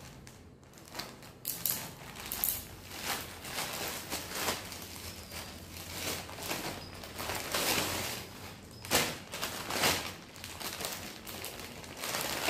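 Plastic courier packaging rustling and crinkling in irregular handfuls as it is cut open with scissors and unwrapped, with a couple of louder crackles near the end.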